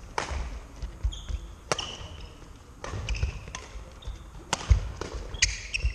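Badminton rally: sharp cracks of rackets striking the shuttlecock about once a second, with short high squeaks of court shoes on the wooden floor and low thuds of footsteps between the hits.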